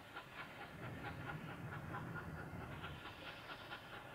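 Oil-burning steam locomotive J541 working under steam, its exhaust beating fast and even at about four to five beats a second, faint, with a low rumble swelling in the middle.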